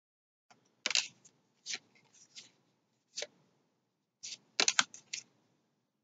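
Pokémon trading cards being handled and sorted by hand: a series of short, crisp clicks and rustles, with a quick cluster of them near the end.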